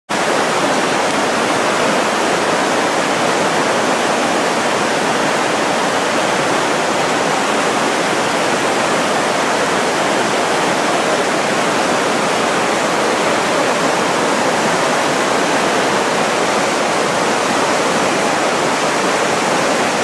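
Whitewater river rapids rushing, a steady, unbroken noise of churning water.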